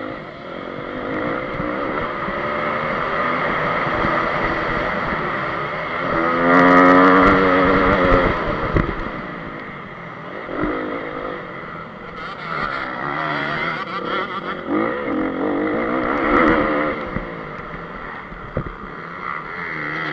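2014 Honda CRF250 motocross bike's four-stroke single-cylinder engine under hard riding, revving up and down as the throttle is worked. It is loudest about six to eight seconds in, and is heard close up from the bike's onboard camera.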